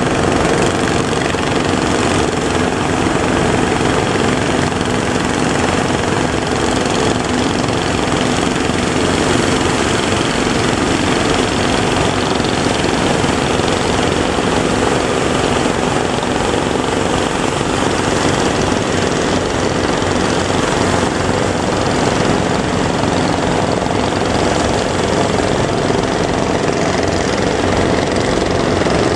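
An engine running steadily at an even speed, under a constant rushing noise.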